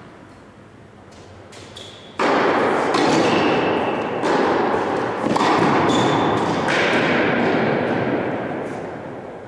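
Tennis rally: racket strikes and ball bounces echoing in a large indoor hall. The hits start suddenly about two seconds in and come roughly once a second for about six seconds, then the echo fades.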